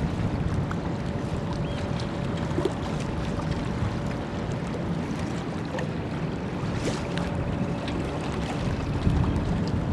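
Low, steady rumble of the cruise ship Oriana passing close by, mixed with wind buffeting the microphone. A faint steady hum comes and goes twice.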